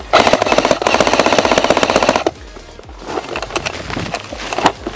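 Airsoft rifle firing one full-auto burst of about two seconds, a fast, even rattle of shots. Scattered lighter clicks and taps follow.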